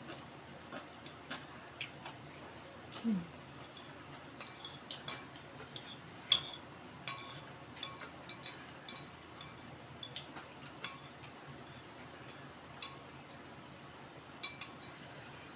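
An eating utensil clinking and scraping against a dish while the last of a bowl of noodles is eaten: scattered light clinks with brief ringing, the loudest about six seconds in. A short falling low sound comes about three seconds in.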